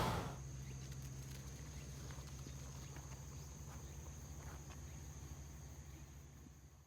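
Faint steady outdoor ambience: a low hum under a steady high thin tone, with a few light clicks, fading out near the end.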